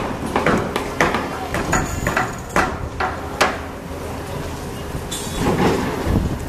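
Sumitomo SH480 excavator working: its diesel engine runs steadily under a rapid string of sharp metallic clanks and knocks, then a louder rumbling surge near the end.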